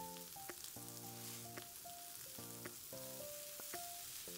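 Onion, tomato and green pepper sizzling faintly in oil in a frying pan over high heat, under soft background music of held notes stepping in pitch.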